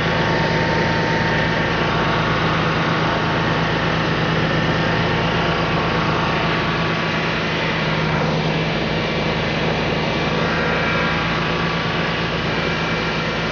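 Commercial straw chopper and blower running steadily: a continuous machine hum under a rushing of blown air as chopped straw is sent out through its flexible hose.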